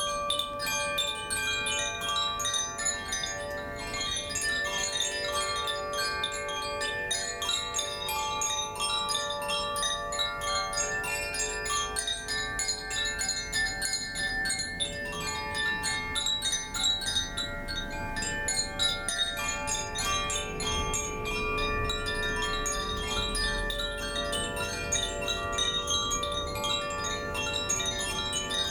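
Koshi chimes, bamboo-bodied wind chimes with tuned metal rods, being gently swung so that their rods are struck continually. Many clear tones overlap and ring on into one another without a pause.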